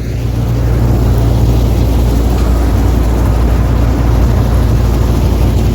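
Combine harvester running steadily: a loud, constant low engine drone with an even noisy rush over it.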